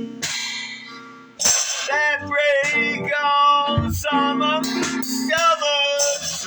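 Music: a voice singing over acoustic guitar, louder from about a second and a half in.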